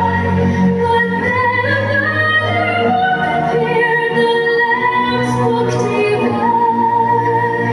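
A group of young voices singing a song together, holding long notes that move from pitch to pitch.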